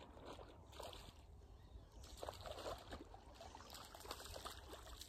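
Faint, irregular sloshing and splashing of water.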